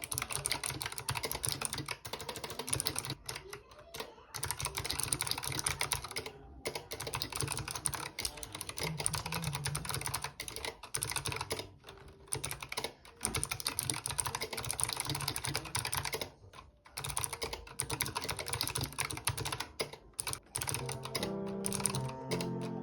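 Fast typing on a Razer Huntsman Mini 60% mechanical keyboard: a dense run of key clacks with a few brief pauses. Background music comes in near the end.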